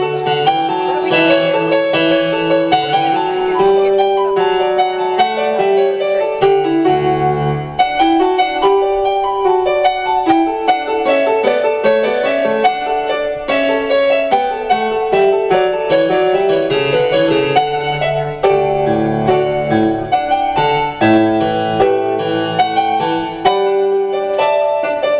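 Piano music: a flowing instrumental piece of many notes over low bass chords.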